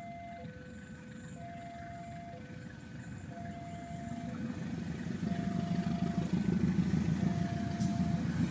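Railway level-crossing warning alarm sounding its two alternating tones, each about a second long, while the rumble of an approaching train grows louder from about four seconds in.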